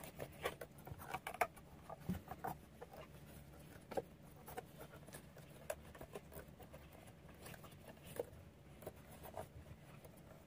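Faint, irregular clicks and rustling of a crochet hook catching and pulling thick macramé cord through stitches, a few small ticks a second.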